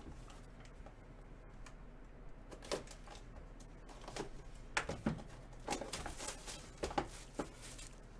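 Trading-card box and packaging being opened and handled by hand: scattered light clicks, taps and rustles, busier in the second half.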